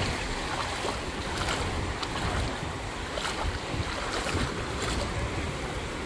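Small ocean waves washing in shallow water, with steady wind noise on the microphone and a few faint splashes.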